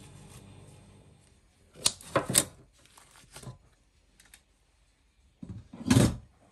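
Knocks and clatter of a metal cake pan and tray being handled: a quick cluster of sharp knocks about two seconds in, a softer knock a second later, and a heavier thump near the end.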